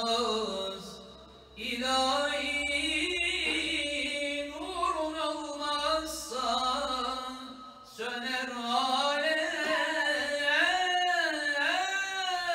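A solo man's voice chanting unaccompanied in long, ornamented melodic lines, an Islamic religious chant of the ilahi or recitation kind. He pauses for breath about a second and a half in and again near eight seconds, then carries on.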